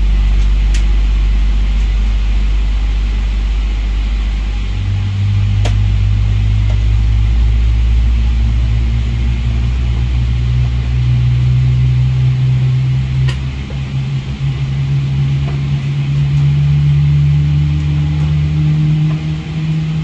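Steady low drone inside the cabin of a Boeing 777-300ER on the ground. In the second half a low tone climbs slowly in pitch. A few light clicks can be heard.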